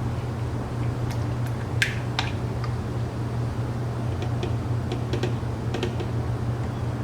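A steady low hum with scattered light clicks and ticks as a quart bottle of motor oil is emptied into the engine's filler neck. The clicks come mostly about two seconds in and again between four and six seconds.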